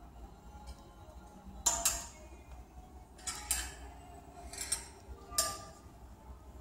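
Clothes hangers clicking and scraping as they are slid along a metal clothing rail: about six sharp metallic clicks, mostly in quick pairs, with a brief ring after each.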